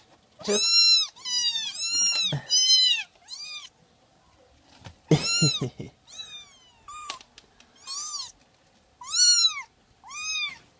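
Young kittens mewing over and over: about ten thin, high-pitched calls that rise and fall, some overlapping one another.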